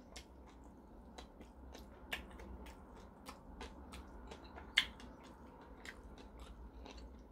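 A person chewing a mouthful of malatang close to the microphone: a quick run of soft, wet mouth clicks and smacks, with two louder clicks about two seconds and five seconds in.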